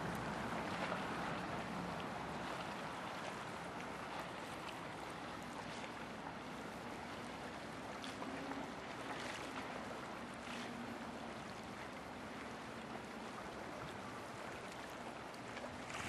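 Steady rushing and lapping of the River Severn's tidal flood flow running upstream along the bank behind the bore, easing slightly over the first few seconds.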